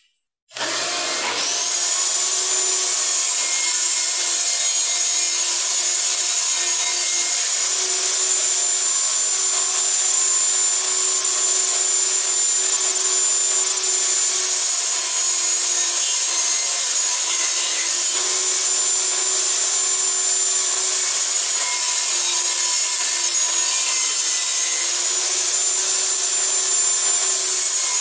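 Benchtop table saw switched on about half a second in, then running steadily with a high whine, ripping the edges off pallet-wood boards. The whine's pitch shifts every few seconds as boards are pushed through the blade.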